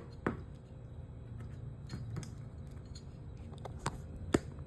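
Zippo lighter's metal insert being worked out of its case: a few sharp metallic clicks, one shortly after the start and two close together near the end.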